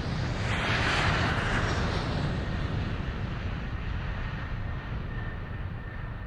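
Aircraft passing overhead in a field recording: a broad engine noise that swells about a second in and then slowly fades away.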